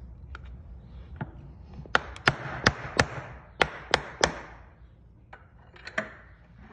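Farrier's hammer tapping at the nails in the hoof wall of a freshly set aluminum horseshoe: sharp metal-on-metal knocks, about seven strong ones in two quick runs of four and three, with a few lighter taps before and after.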